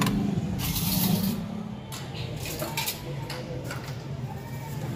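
A metal spatula scraping and clinking against steel serving trays, with a few short clinks in the second half, over a low hum of background voices.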